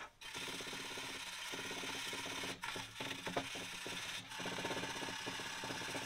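Small hand wire brush scrubbing the pitted aluminum of a water heater tank: a rapid, continuous scratching with a few brief pauses. It is cleaning the metal down to bare aluminum before TIG welding.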